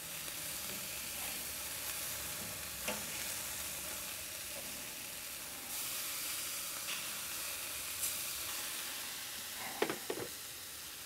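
Pork steaks sizzling steadily on the grate of a charcoal kettle barbecue, fat dripping into the fire and making it smoke, with a few short crackles about three, eight and ten seconds in.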